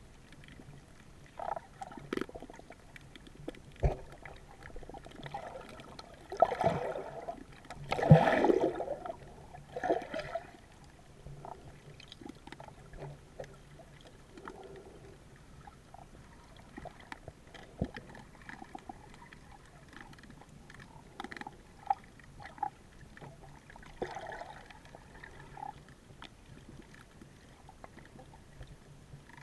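Underwater sound picked up by a camera in its housing: scattered sharp clicks and taps, with a few gurgling rushes of water and bubbles, the loudest about eight seconds in and a smaller one near the end.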